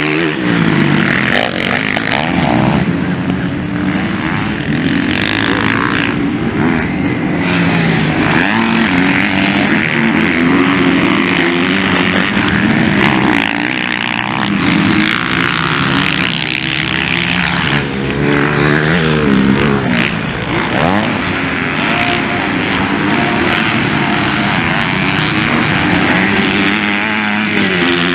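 Motocross dirt bikes racing, engines revving hard, the pitch climbing and dropping again and again as riders accelerate and back off.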